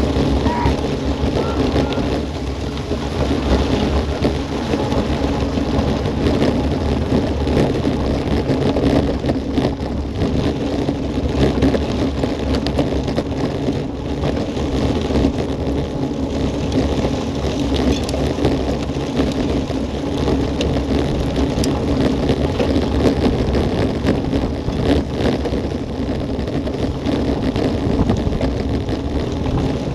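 Steady wind rushing over an action camera's microphone on a road bike at speed, with the tyres crackling over a gravel path.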